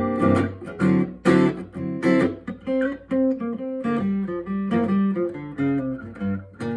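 Acoustic guitar playing an instrumental passage between sung lines, plucked and strummed notes in a steady rhythm.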